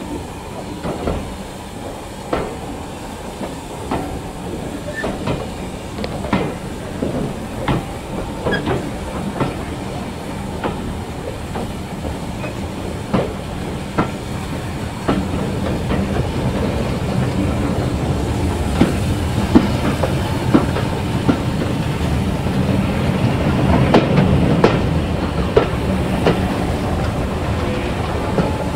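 Train running along the line, its wheels clicking over rail joints about once a second under a steady rumble. The rumble grows louder about halfway through.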